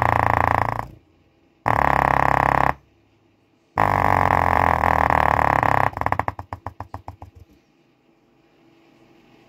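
A bare 4-inch subwoofer driver playing bass hard and distorting, in three loud blasts that break off between them. A rapid stutter of pulses follows about six seconds in, slowing and fading out within a second and a half.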